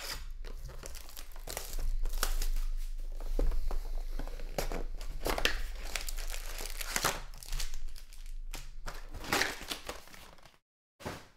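Plastic shrink wrap being torn off a sealed box of trading cards and crumpled, then the cardboard box opened and its wrapped card packs pulled out and set down, an irregular run of crackling and rustling that stops about a second before the end.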